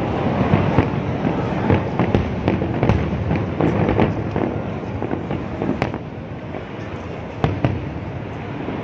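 Aerial fireworks display going off continuously: a dense low rumble of booms peppered with many sharp cracks and pops, easing off a little about halfway through, with a few louder single cracks near the end.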